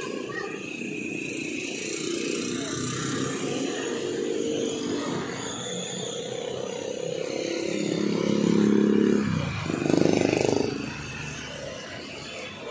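Motorcycle engine running steadily. It grows louder about eight seconds in, drops off sharply with a swing in pitch, swells again a second later, then settles back.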